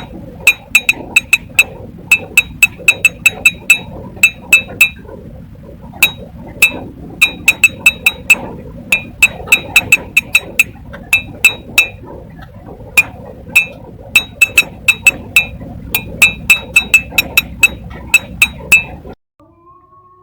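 A rapid, irregular run of sharp, ringing clicks, several a second, over a low steady hum; it stops about nineteen seconds in.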